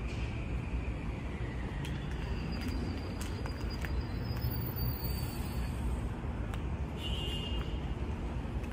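Train approaching the station from a distance, heard as a steady low rumble with a few faint clicks.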